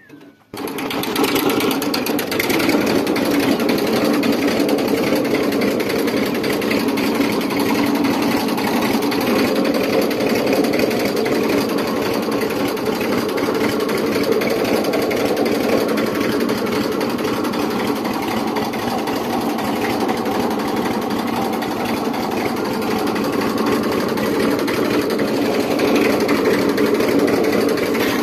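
Old Massey Ferguson tractor's diesel engine running steadily and loud, starting abruptly about half a second in.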